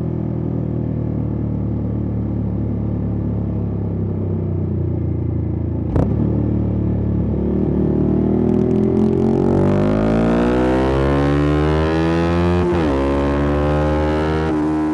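2022 Yamaha R125's single-cylinder four-stroke engine through a Black Widow aftermarket exhaust, running at steady revs with one sharp pop about six seconds in. From about eight seconds the revs climb under acceleration, drop briefly on an upshift and climb again near the end.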